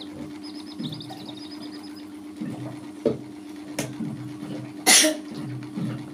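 Baby chicks cheeping: a quick, high trill of short peeps in the first two seconds, over a steady low hum. A short, loud burst of noise about five seconds in is the loudest sound.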